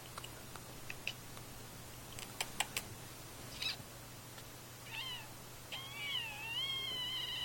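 A cat meowing: a short call about five seconds in, then a long, wavering meow near the end. A few faint clicks come before the calls.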